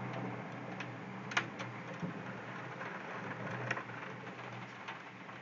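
Heavy rain heard through a window: an even hiss of downpour with a few sharp ticks, slowly getting quieter.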